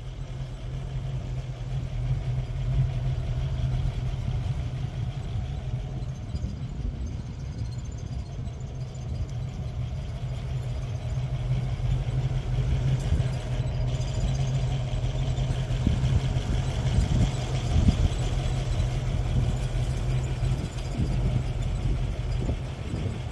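1960 Chevrolet Corvette's 283 cubic-inch V8 with dual four-barrel carburetors idling steadily, heard close up at the open engine bay.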